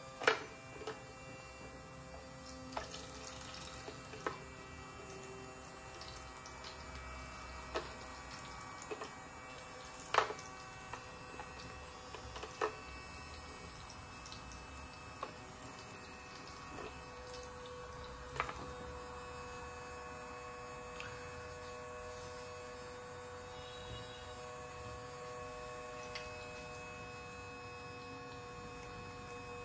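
A steady electrical hum with scattered short, light clicks and taps, the loudest near the start and about ten and eighteen seconds in.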